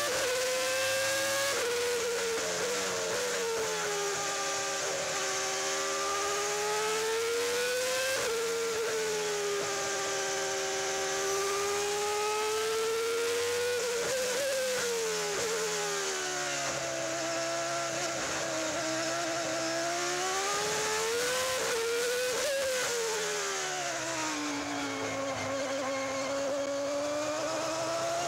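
Onboard sound of a Williams Formula One car's Renault V10 engine at racing speed. The note repeatedly sinks in long falls and climbs again, with sudden steps at the gear changes, as the car slows for corners and accelerates out of them.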